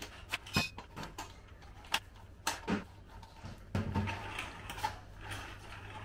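Metal bars and plastic corner feet of an adjustable washing-machine base stand clicking and clacking as the stand is fitted together on a tiled floor: a run of irregular sharp knocks and clatters.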